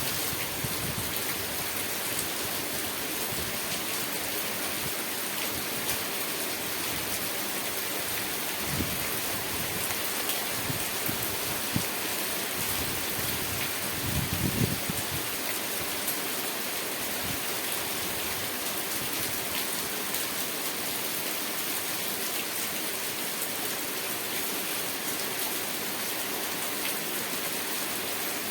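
Steady rain falling, an even hiss with a patter of drops. A couple of brief low thumps stand out, one about a third of the way in and one about halfway through.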